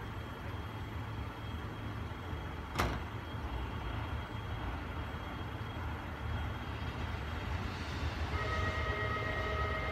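KiHa 75 diesel railcar's engine idling with a steady low rumble. A single sharp click comes about three seconds in, and a steady whine of several tones starts about eight seconds in.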